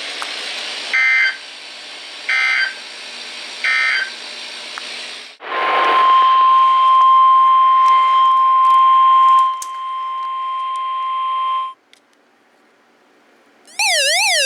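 Three short two-pitch EAS digital data bursts, the end-of-message code, sound over radio hiss. Then a steady single-pitch weather-radio warning alert tone sounds for about six seconds and cuts off. Near the end a loud warbling, siren-like alert tone starts.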